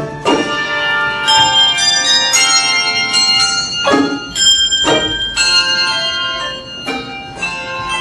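A handbell choir playing a tune: a series of struck handbells, each note ringing on and overlapping the next.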